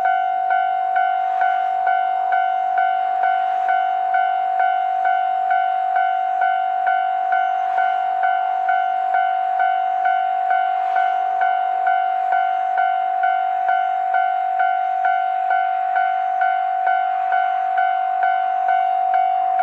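Japanese railway level-crossing warning bell ringing steadily at about two strikes a second, each strike a clear ringing tone that carries into the next, signalling an approaching train.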